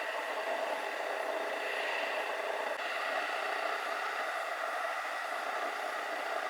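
Steady rushing noise with no distinct events, shifting slightly in tone about three seconds in.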